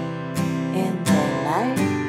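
Acoustic guitar strummed, a chord roughly every 0.7 seconds, with a note sliding up in pitch about a second in.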